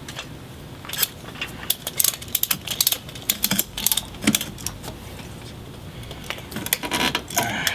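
Ratchet strap on a folding RV stabilizer being ratcheted tight: quick runs of sharp metallic clicks from the ratchet's pawl, a pause of a second or two, then more clicks near the end.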